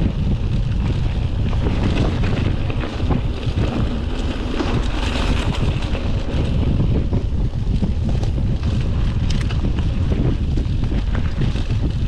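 Wind buffeting a chest-mounted camera's microphone while riding a mountain bike, over a steady rumble of tyres on the trail and frequent short clicks and knocks from the bike rattling over rough ground.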